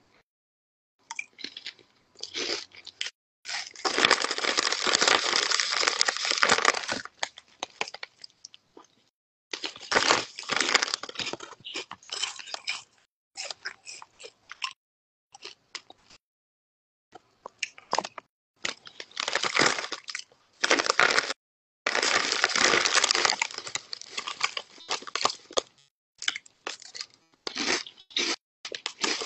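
Crunchy chips being chewed close to the phone's microphone, in irregular bursts split by short silent gaps, with the chip bag crinkling now and then.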